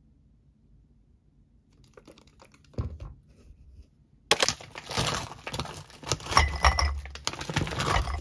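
A couple of soft knocks as a paper drink carton is set down on a desk. Then, from about four seconds in, a plastic food bag crinkles loudly while chicken breast pieces tumble out of it and clink into a small ceramic ramekin.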